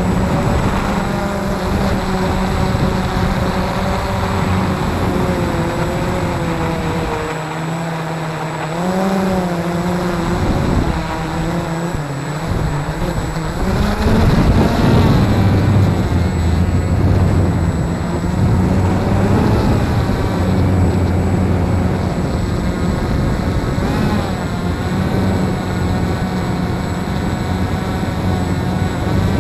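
Walkera QR X350 Pro quadcopter's brushless motors and propellers buzzing in flight, heard close up from the camera it carries. The pitch wavers up and down as the motor speeds change, and shifts about halfway through.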